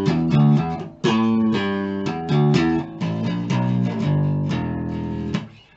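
A Chinese copy of a Rickenbacker neck-through bass guitar played through a guitar amp: a quick bass riff of plucked notes, with a short break about a second in and the notes stopping near the end.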